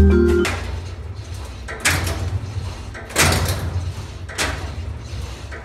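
Cybex lat pulldown machine worked in repetitions: its weight stack and cable slide and clank three times, about one and a third seconds apart. A short mallet-music jingle ends about half a second in.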